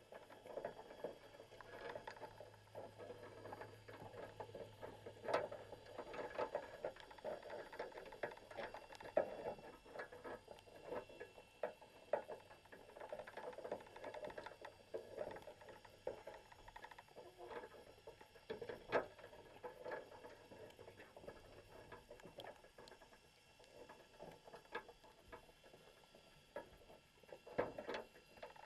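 Underwater ambience heard through a camera's waterproof housing: a continuous faint crackle of irregular small clicks and taps, with a few sharper ticks scattered through.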